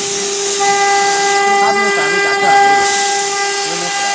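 CNC router's 3 kW water-cooled spindle running at a steady high-pitched whine while its cutter engraves MDF, with a loud hiss from the cutting.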